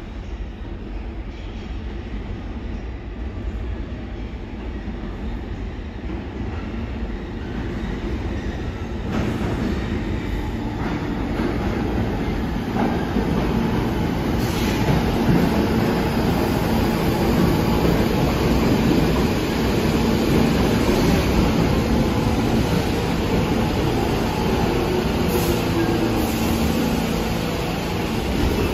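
New York City subway train running on the rails, a steady rumble that grows louder from about nine seconds in and stays loud through the second half.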